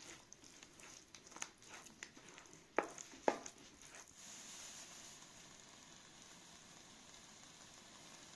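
Several sharp clicks and knocks of a utensil on a pan, the two loudest about three seconds in, then from about four seconds on a steady sizzle of food frying in oil.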